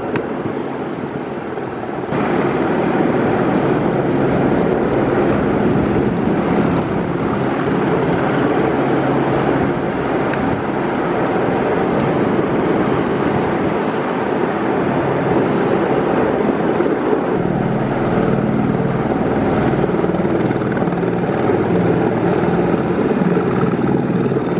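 Police helicopter's rotor and engine running overhead, a steady drone that grows louder about two seconds in.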